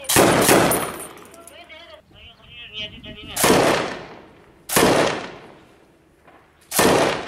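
Belt-fed machine gun firing four short bursts of rapid shots, each followed by a ringing echo, at the start, about three and a half seconds in, around five seconds and near the end.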